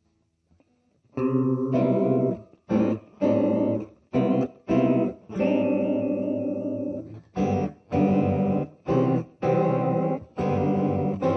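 Electric guitar played through a U-Sound Antarctic Chorus pedal. After about a second of silence come chords played in short stabs, each cut off and struck again, with one chord held longer in the middle.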